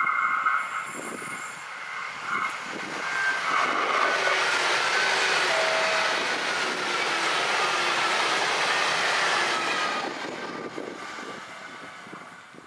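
V/Line VLocity 160 diesel multiple unit approaching and passing at speed. A two-tone horn cuts off about a second in; then the rush of the train builds to its loudest in the middle, with falling whines from its engines, and fades away near the end. Gusty wind buffets the microphone.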